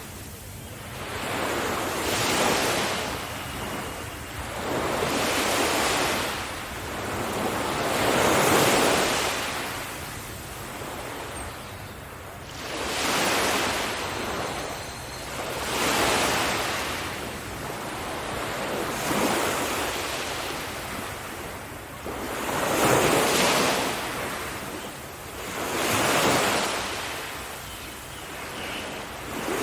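Sea waves breaking and washing up a beach, one swell of surf about every three seconds.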